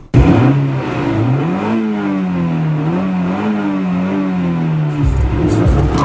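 Car engine accelerating hard at high revs: its pitch climbs over the first couple of seconds, then holds high with small rises and dips, and changes abruptly about five seconds in.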